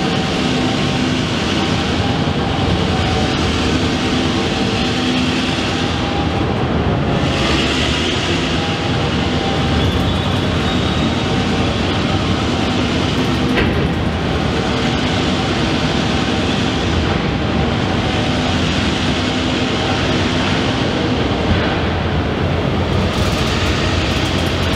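Loaded freight wagons of a works train rolling past on the rails: a steady, continuous rumble of wheels and wagons.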